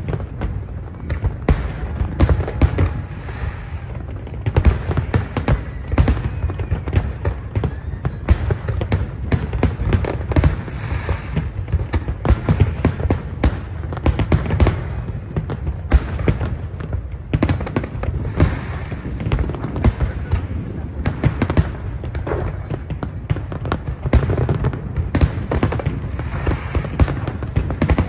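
Large aerial fireworks display: a dense, unbroken run of bangs, several a second, over a low rumble.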